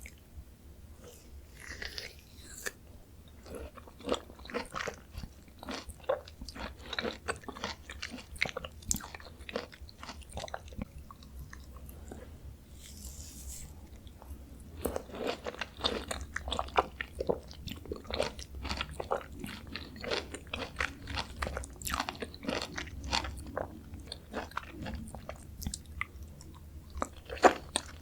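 Close-miked biting and chewing of Jeju mandarin orange segments: a dense run of short, quick clicks and crunches, with a brief lull about halfway through.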